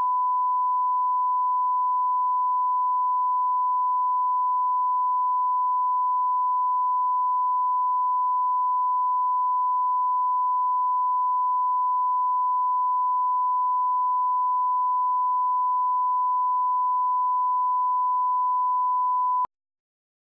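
Steady 1 kHz line-up test tone, the reference tone that goes with broadcast colour bars, held at a constant level and cutting off abruptly near the end.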